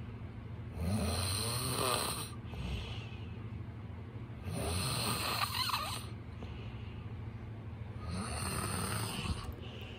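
A man snoring in his sleep: three rough snores, each a second or so long, about four seconds apart.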